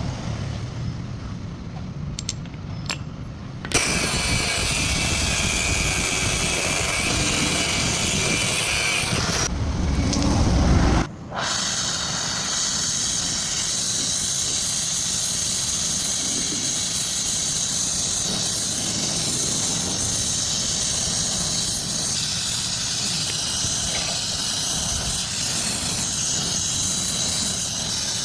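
Welding joining copper to steel: a low rumble with a couple of clicks, then a loud, steady hiss that starts about four seconds in and continues. The low rumble under the hiss stops about eleven seconds in.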